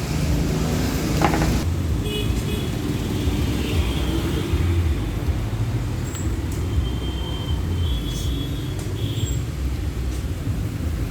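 Steady road traffic rumble, with a few short, distant horn toots over it.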